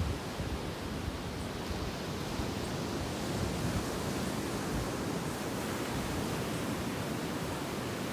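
Sea surf washing onto a sandy beach: a steady, unbroken rush of waves.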